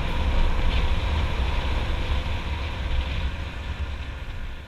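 Wind rushing over the microphone and a small motorcycle's engine running at cruising speed, a steady noise heaviest in the low end, fading out near the end.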